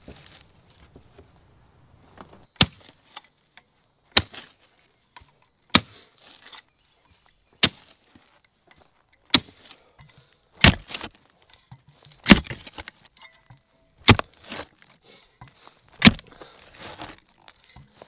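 Manual clamshell post hole digger driven into dry, sandy soil: about nine sharp strikes, one every one and a half to two seconds, each followed by a short scrape.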